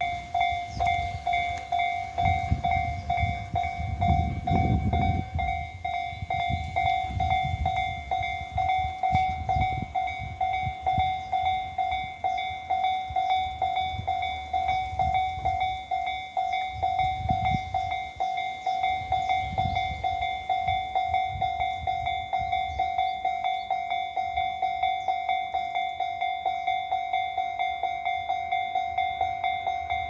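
Japanese railway level-crossing warning alarm (踏切警報機) sounding: a bright electronic bell tone pulsing in a rapid, steady ding-ding rhythm, starting suddenly and ringing on without pause, the signal that a train is approaching and the barriers are coming down. Irregular low rumbling swells underneath at times.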